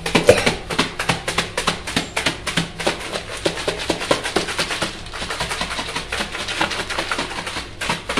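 Crisp papad pieces and spice mix rattling inside a lidded plastic container shaken hard by hand, a fast, steady rattle that thickens into a continuous shaking in the second half. The pieces are being tossed to coat them evenly with the masala.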